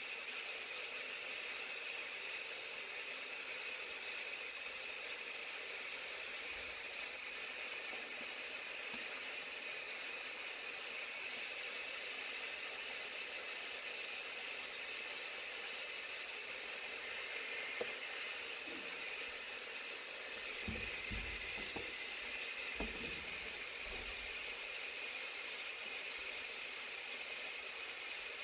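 Steady hiss with a faint high whine running under it, and a few soft low knocks in the last third.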